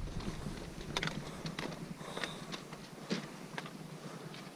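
Hikers' footsteps crunching on a rocky, gravelly trail, with irregular sharp taps of trekking poles striking stone.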